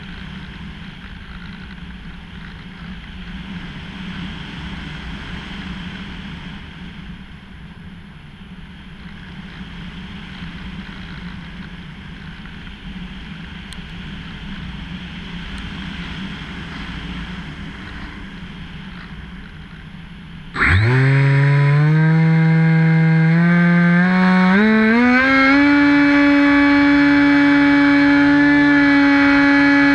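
A steady rushing noise from a Hobbyking Bixler powered glider in flight. About two-thirds of the way through, its electric pusher motor and propeller cut in abruptly with a loud whine. The whine steps up in pitch over a few seconds as it is throttled up, then holds steady.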